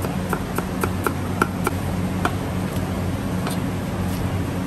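Chinese cleaver chopping ginger and spring onion on a wooden chopping block. There are quick knocks of the blade on the wood, about four a second for the first second and a half, then fewer and further apart. A steady low hum runs underneath.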